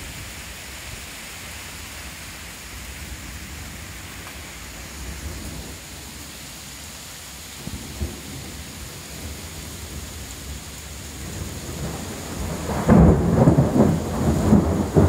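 Heavy rain falling steadily, then a loud rolling rumble of thunder that swells up near the end.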